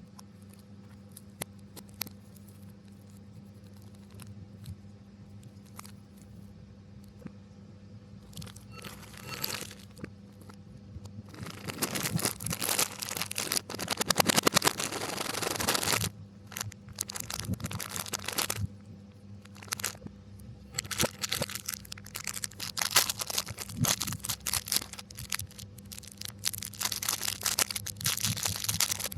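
Snack packaging being crinkled and torn open, played backwards: a few faint clicks at first, then rustling and tearing in bursts from about a third of the way in, loudest around the middle, over a steady low hum.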